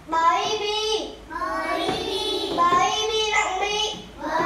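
Young children's voices reading Vietnamese syllables aloud in a drawn-out, sing-song chant, in held phrases about a second long with short breaks about a second in and near the end.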